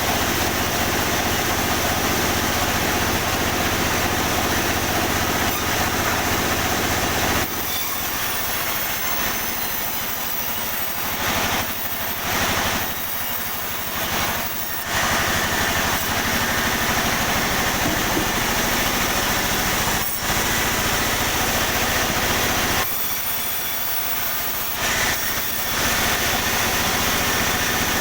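Sawmill running steadily while sawing pine timber, its motor and blade making a constant loud mechanical noise. It goes quieter and thinner for several seconds about a third of the way in and again near the end.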